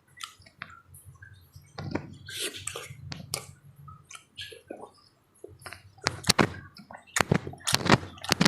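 Close-up eating sounds of soft, juicy papaya with syrup: wet chewing and lip smacks, with a run of sharp smacking clicks near the end.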